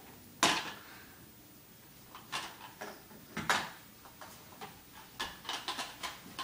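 Red squirrel pull-along toy knocking and clattering as it is dragged on a string across a hardwood floor and rug. Irregular sharp clacks, the loudest about half a second in, then scattered knocks and a quick run of clacks near the end.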